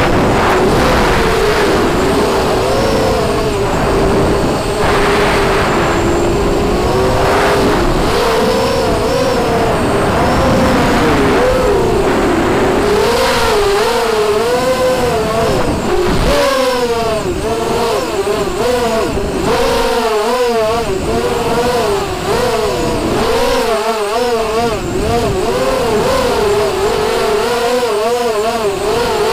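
Racing quadcopter's four T-Motor 1806 2300 KV brushless motors spinning 5x4 propellers, a loud whine whose pitch keeps rising and falling as the throttle changes, swinging up and down more quickly and widely from about halfway through.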